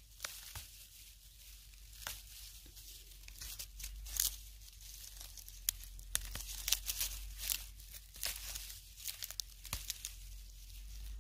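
Dry dead fern fronds and brittle stalks crackling and rustling as a hand parts them and picks young fern fiddleheads close to the microphone, with many irregular sharp crackles.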